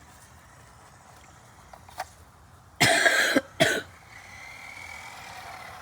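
A person coughing twice, a longer cough about three seconds in and a shorter one right after it.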